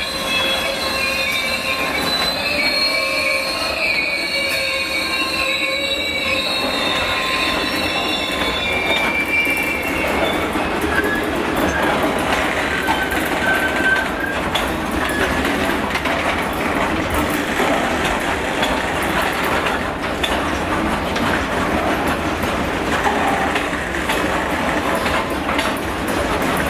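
Freight train hauled by a Class 66 diesel rolling past: the wheels squeal with several high-pitched tones for about the first ten seconds, then the squeal fades into a steady rumble and clicking of the freight wagons' wheels on the rails.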